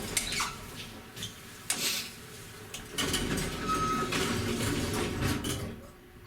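Mechanical clatter and rumbling from an old elevator, with a brief squeak about four seconds in.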